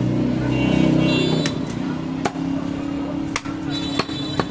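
Steel meat cleaver chopping goat meat on a wooden log chopping block: five sharp chops starting about a second and a half in, over a steady low engine-like hum.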